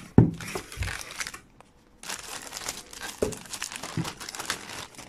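Clear plastic bag crinkling as it is handled and pulled off a tabletop radio, with a few low thumps of the radio being moved. It pauses briefly about a second and a half in.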